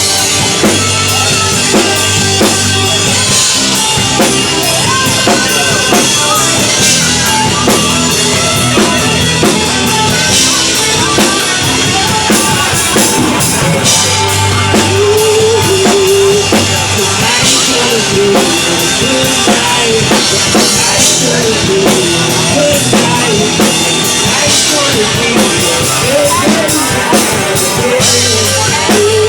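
Live band playing loud dance-rock music: a steady drum-kit beat under bass and a lead melody, with no singing.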